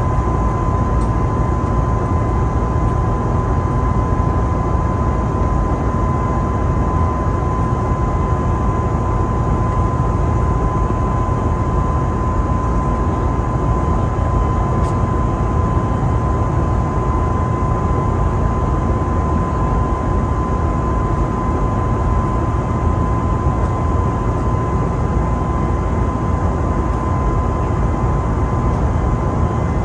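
Steady cabin noise inside an Airbus A320neo airliner: an even rumble and rush of engines and air with a steady high whine running through it.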